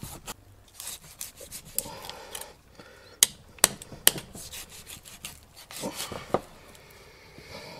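Knife cutting through a raw lamb carcass to separate a hind leg: soft rubbing and slicing of the blade through meat and sinew, with scattered sharp clicks, the three loudest a little past the middle.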